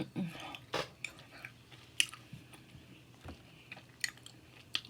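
A person chewing food close to the microphone, with a few sharp wet mouth clicks spaced about a second apart.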